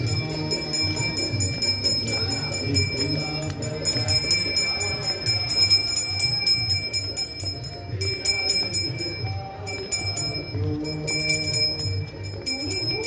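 Temple bells ringing continuously with rapid, repeated strikes, a steady metallic ring held under them, over music with a steady beat.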